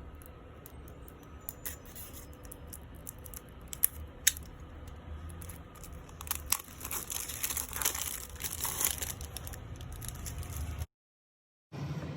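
Plastic wrapping on a CD being torn open and crinkled, with two sharp clicks about four seconds in. The crinkling is busiest in the middle, and the sound drops out completely for under a second near the end.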